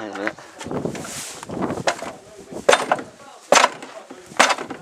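Sharp knocks on a stripped-down, seized car engine, four in about three seconds, after a brief rustling hiss.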